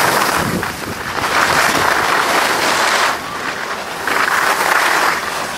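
Skis sliding over packed snow, a hiss that swells three times for a second or two each.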